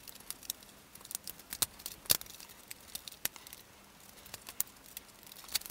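Plastic parts of a vintage G1 Transformers Sharkticon Gnaw figure clicking and knocking as it is folded by hand from beast mode into robot mode: scattered sharp clicks at an uneven pace, the loudest about two seconds in.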